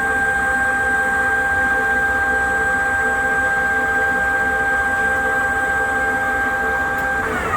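Southwestern Industries 1845SX CNC lathe running its program: a steady, high, multi-pitched whine from the spindle drive, which drops in pitch near the end as the spindle slows.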